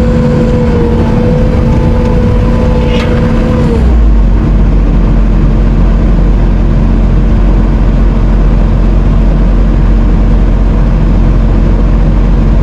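Diesel engine of an earthmoving machine running steadily under load, with a steady whine over it that falls off and stops about four seconds in; after that a heavier low rumble carries on.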